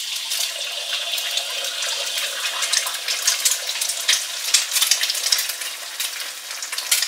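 An egg frying in hot oil in a wok: a steady sizzle thick with crackles and pops.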